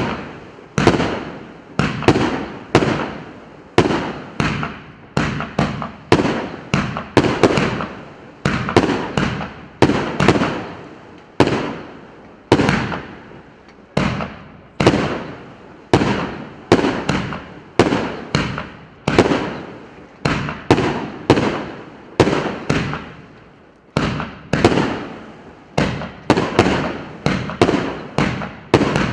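Fireworks battery ('Saturn Rings' PC950 cake) firing shot after shot, about two sharp bangs a second, some in quick pairs, each bang with a short fading tail.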